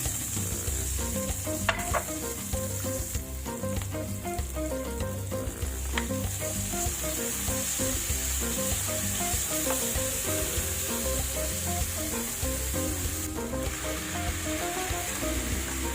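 Garlic, onions and tomatoes sizzling steadily in hot oil in a pan while they are stirred, cooking down until the tomatoes wilt. There are two light knocks, about two and six seconds in.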